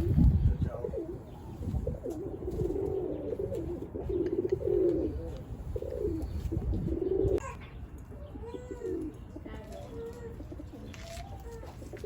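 Domestic pigeons cooing over and over in a low murmur. The cooing is fuller for the first seven seconds or so, then turns softer and more scattered.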